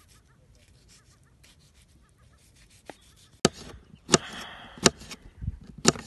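Quiet for the first three seconds or so, then a kitchen knife chopping green peppers on a plastic cutting board: four sharp knocks about two-thirds of a second apart.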